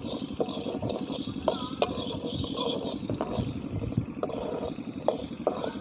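Black peppercorns and cardamom pods being dry-roasted and stirred in a pan: a dry scraping and rattling with scattered sharp clicks.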